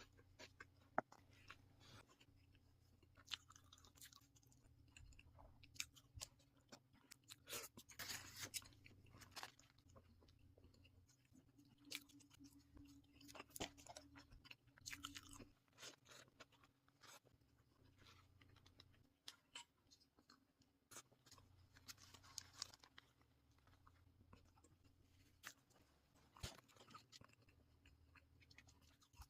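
Close-miked chewing and crunching of fast food from a Burger King shrimp burger and fries set, with irregular crisp crunches over a faint steady hum.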